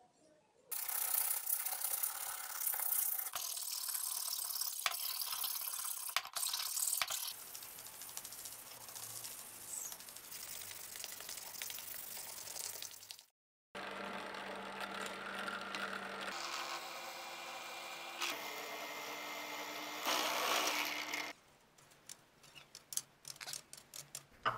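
Hand sanding of a maple axe handle: a steady, scratchy rasp of abrasive rubbing on wood that cuts out briefly about 13 seconds in and then carries on. Near the end it gives way to scattered light clicks and scrapes as a round file works the handle clamped in a vise.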